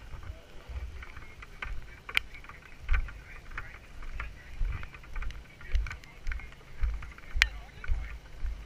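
Footsteps walking on a wet road, low thuds that settle into a steady pace of about two steps a second in the second half, with the rustle of clothing and gear rubbing close to the microphone.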